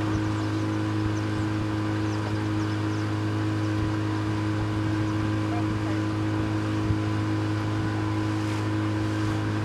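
Boat engine running steadily at one speed, a constant low hum that does not change in pitch.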